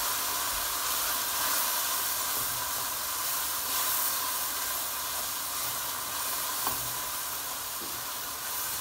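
Onion, ginger-garlic paste and spices sizzling in oil with a little water in a non-stick pot as they are stirred; a steady hiss that eases slightly toward the end.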